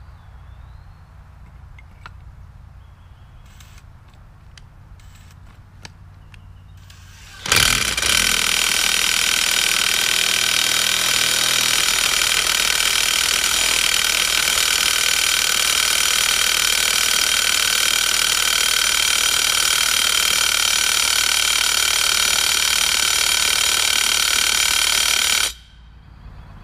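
Cordless DeWalt power tool running steadily under load as it screws a helical earth anchor into the soil through an anchor-driving adapter. It starts suddenly about seven seconds in, runs for about eighteen seconds and cuts off a second before the end.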